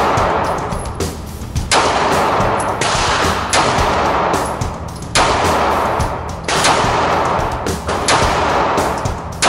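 Single shots from a 9mm semi-automatic pistol fired at an indoor range, about one every one to two seconds, each followed by a long echo. A rock music track plays underneath.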